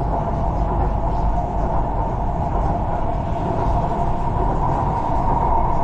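Chennai Metro train running: a steady rumble with a steady whine over it.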